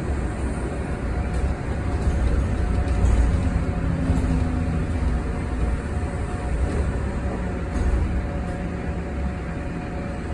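Cabin noise aboard a Yutong ZK6128BEVG (E12) battery-electric city bus under way: a steady low rumble from the road with a faint steady hum over it.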